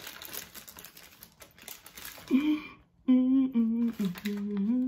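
Crinkling of a mooncake's plastic packaging being opened, then, about three seconds in, a woman humming a few steady notes, louder than the crinkling.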